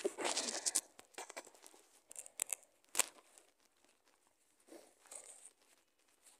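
A stifled sneeze: a short, muffled, noisy burst held back in the nose and mouth, followed by small rustles and clicks, with one sharp click about three seconds in.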